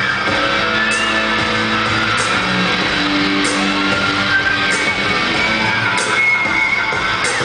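Pop music played loud through a concert stage's speakers during a live boy-band performance: held notes over a beat with a sharp hit a little more than once a second.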